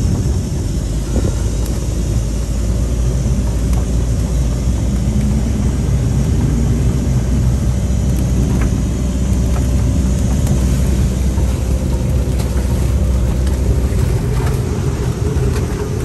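Strong gale-force wind buffeting the microphone on a sailboat, a continuous heavy rushing over a steady low drone.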